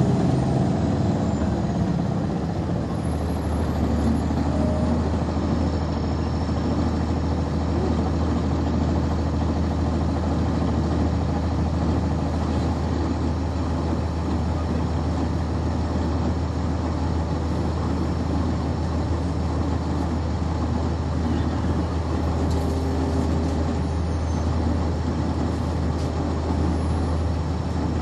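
Cummins ISC diesel engine of a 1999 NovaBus RTS transit bus, heard from inside the bus. Its sound eases off over the first couple of seconds, then settles into a steady low drone.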